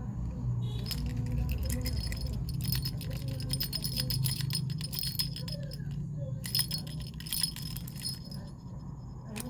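Small items and their packaging being handled, with quick rattling and clinking clicks in two busy stretches and a short lull about six seconds in. A steady low hum runs underneath.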